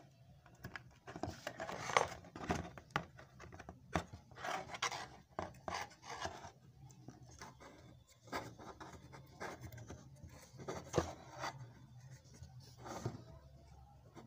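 Handling noise of an old TV circuit board being moved about on cardboard: irregular rubbing and scraping with scattered clicks, over a low steady hum.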